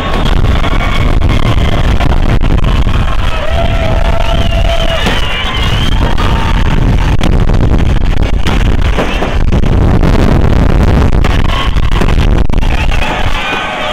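Music playing loudly over a noisy, whooping crowd, with the bangs and rumble of New Year fireworks going off.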